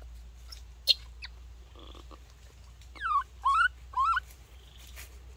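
Baby monkey giving three short high calls about half a second apart, each dipping and then rising in pitch, with a sharp click about a second in.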